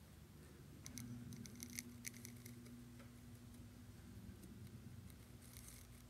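Faint scratching and light ticks of a ballpoint pen drawing strokes on lined paper, in clusters about a second in and again near the end, over a low steady hum.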